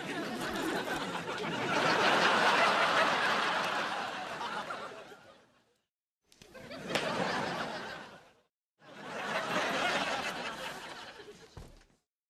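Canned studio-audience laughter from a TV sitcom laugh track: a crowd laugh that swells and fades over about six seconds, then two shorter laugh clips, each starting after a brief dead-silent gap.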